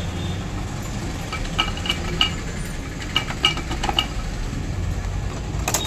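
Light metallic taps and clinks of tools on the engine casing, about half a dozen between a second and a half and four seconds in and a few more near the end, each with a short ring, while the casing half of a Hero Passion Plus motorcycle engine is seated and tapped into place. Under them runs a steady low rumble.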